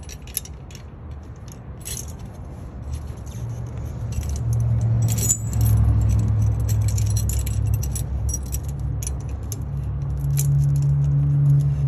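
Steel tire chain links clinking and rattling as a lever load binder is worked to draw a tire chain tensioner leg tight against heavy chain tension. A low steady hum comes in about four seconds in and becomes the loudest sound.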